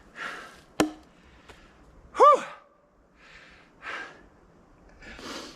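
A man panting in heavy, repeated breaths after hard axe chopping, with one sharp knock about a second in and a short, loud voiced groan a little after two seconds.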